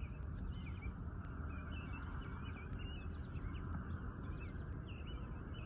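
Small birds chirping: many short, quick high chirps overlapping throughout, over a low steady rumble.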